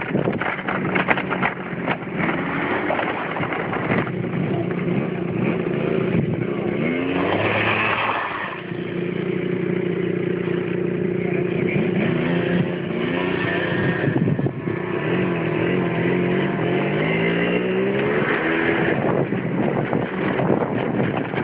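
Small 50cc scooter engine running at riding speed, its pitch rising and falling with the throttle, over wind and dirt-road noise from the moving scooter.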